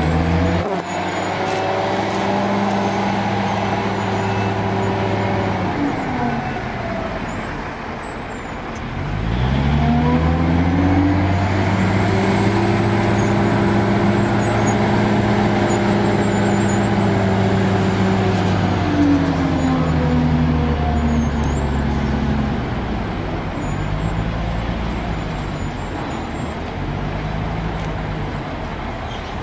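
Large engine of a heavy work machine revving up and holding high revs for several seconds, then dropping back. This happens twice, the second time for about ten seconds, and it then settles into a lower, steadier run.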